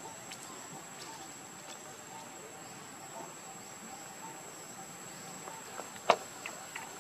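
A steady high-pitched insect drone with a faint, lower chirping repeating under it, and one sharp click or snap about six seconds in, followed by a few lighter clicks.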